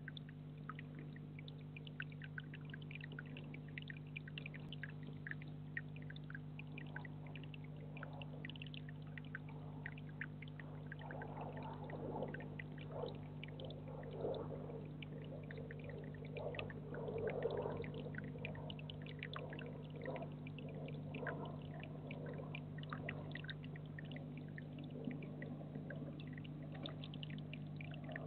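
Water trickling and splashing into a small rocky garden pond, with many small drips, over a steady low hum. The splashing grows louder and fuller for a stretch in the middle.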